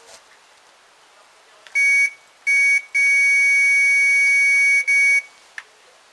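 Electronic carp bite alarm sounding: a loud, steady high-pitched tone in four bursts, the longest nearly two seconds. The near-continuous sounding is the sign of a run, line being pulled off by a fish.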